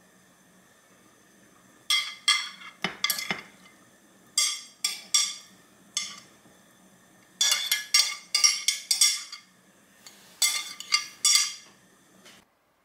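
Metal tongs and a metal spoon clinking and scraping against a white ceramic divided side-dish plate and plastic storage containers while serving banchan. The clinks come in four quick runs, each with a short bright ring.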